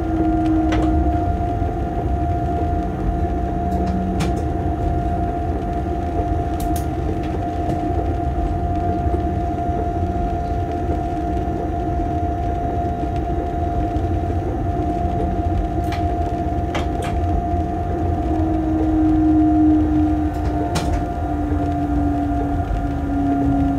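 Locomotive cab noise while running on the line: a steady low rumble with a constant whine and a second, lower tone that sinks slightly near the end. A few sharp clicks are scattered through it.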